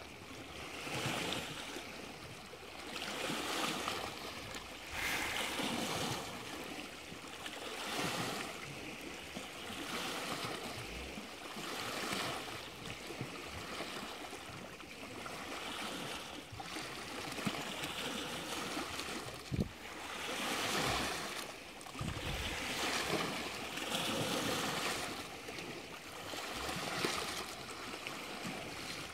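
Small Lake Superior waves washing and lapping, swelling and falling back every couple of seconds, with a sharp knock and a dull thump about two-thirds of the way in.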